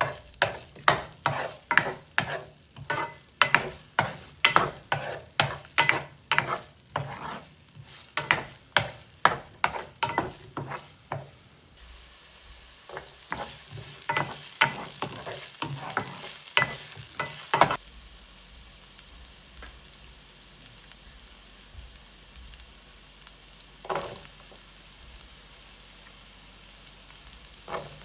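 Regular sharp knocks in a kitchen, about two a second, for roughly the first eleven seconds. Then food sizzles steadily in a hot pan, with an occasional knock.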